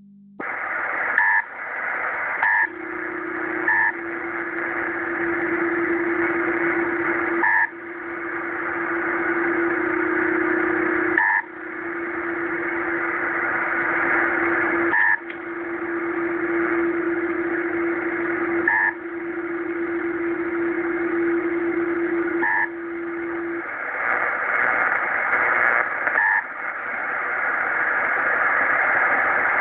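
Shortwave radio tuned near 7.105 MHz in the 40-metre band, giving out a strange repeating signal over band hiss. Short double beeps come about every four seconds, each followed by a sudden dip in the noise and a slow swell back up. A steady low tone sounds from about three seconds in until about twenty-three seconds.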